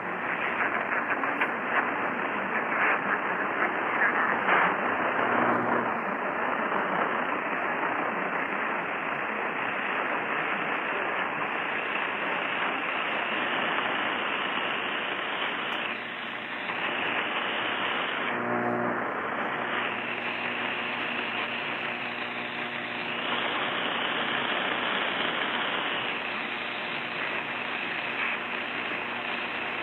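Steady radio static hiss from a poorly received station in place of the broadcast, with faint snatches of tone showing through twice.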